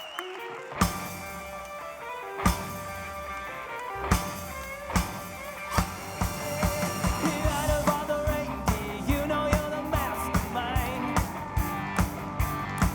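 A rock-and-roll song starting about a second in, opening with widely spaced heavy drum hits and then settling into a busier steady beat.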